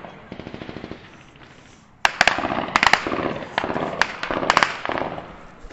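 Automatic gunfire in bursts: a short, rapid burst in the first second, then about two seconds in a louder, longer stretch of rapid shots that lasts about three seconds.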